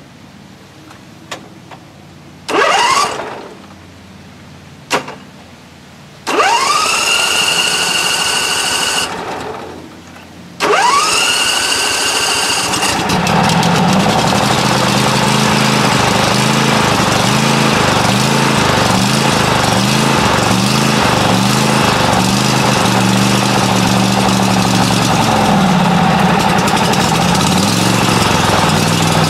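A Great Dane Super Surfer mower's engine being cranked on its electric starter: three tries, each with a whine that rises and holds, then it catches about 13 seconds in and keeps running with an uneven, wavering note. It fires after carburetor cleaner was soaked into the fuel line that would not feed the carburetor, and runs rough, not yet tuned up.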